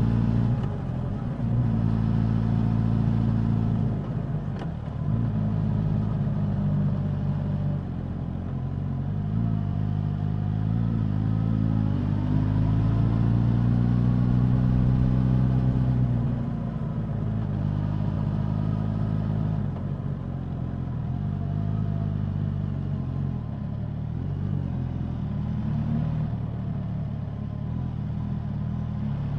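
Suzuki GSX-S1000 inline-four engine and exhaust under way, the pitch rising and falling as the rider opens and closes the throttle: a dip about four seconds in, a long climb in the middle that drops away after about sixteen seconds, then steady cruising.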